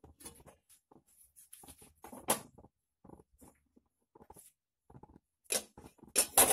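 Metal saucepan, its lid and a metal baking tin being handled: irregular small scrapes and clinks of metal on metal, with a sharp clink about two seconds in and a cluster of louder ones near the end.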